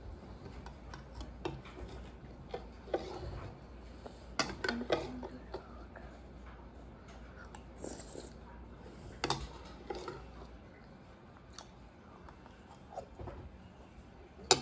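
Spoons and chopsticks clinking and scraping against bowls during a meal, in scattered short knocks with a few louder ones about four to five seconds in and again around nine seconds.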